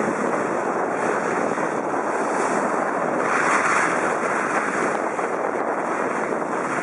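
Steady rushing wind noise on the microphone, mixed with skis sliding over packed snow, swelling briefly a little past the middle.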